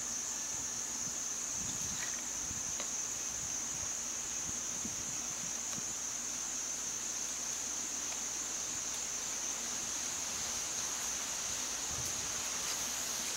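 A steady, high-pitched drone of a forest insect chorus, with faint low rumbling underneath.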